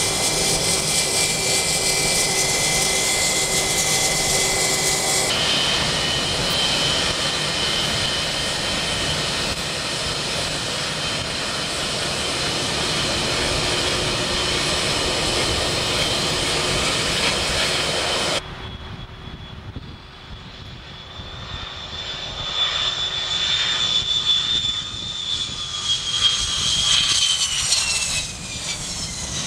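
Jet airliners taxiing, their engines giving a steady whine. About two thirds of the way in, the sound changes to a Boeing 727's rear-mounted Pratt & Whitney JT8D engines at take-off power. It grows louder as the jet rolls past, and near the end its high whine falls in pitch as it goes by.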